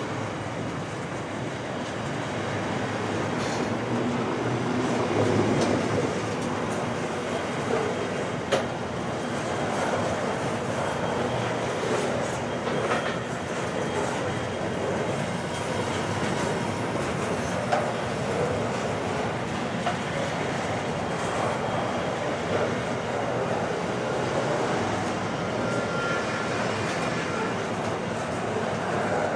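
Container wagons of a long, heavy SCT intermodal freight train rolling past: a steady rumble of steel wheels on rail, with a few sharp clicks from the wheels over rail joints.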